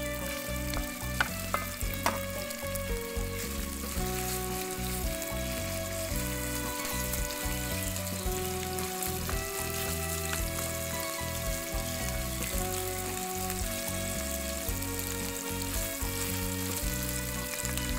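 Beef strips sizzling as they fry in hot oil in a cast-iron pan, stirred with a wooden spatula, with a few sharp clicks in the first two seconds. Background music plays along.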